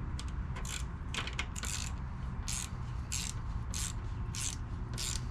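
Socket ratchet clicking in short, evenly spaced strokes, about one and a half a second, as small 8 mm bolts are run in or out.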